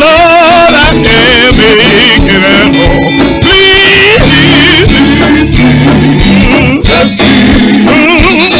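Men's gospel vocal group singing with strong vibrato over steady instrumental backing.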